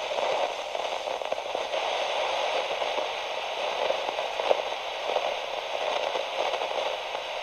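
Steady crackling static with scattered small clicks, thin and narrow like sound heard through a radio.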